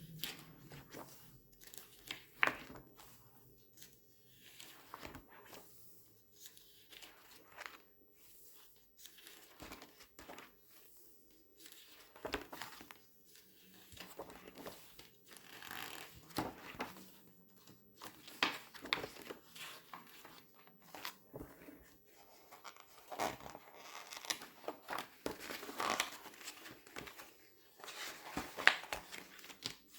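Glossy paper pages being turned and squeezed, giving irregular crinkling and rustling with sharp snaps.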